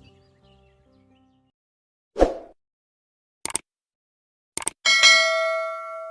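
Sound effects: a thud about two seconds in, two quick double clicks, then a bell ding that rings on for about a second and a half.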